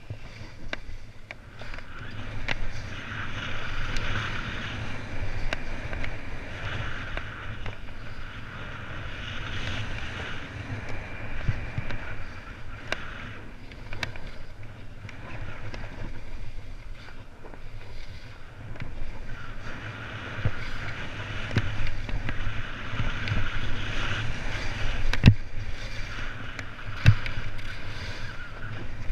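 Edges scraping and carving over packed snow on a fast downhill run, the hiss swelling and fading with each turn, over a steady rumble of wind on the microphone. Two sharp knocks near the end as the board or skis hit bumps.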